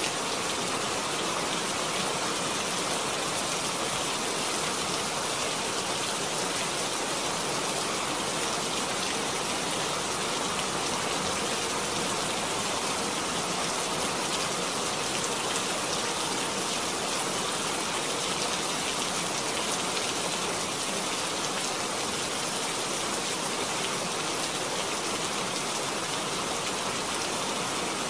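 Steady rain falling, an even, unbroken hiss of many drops that holds the same level throughout.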